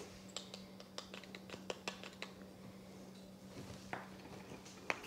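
Faint, scattered light clicks and taps of a spice jar and a plastic measuring spoon being handled while garlic powder is measured out, over a faint steady low hum.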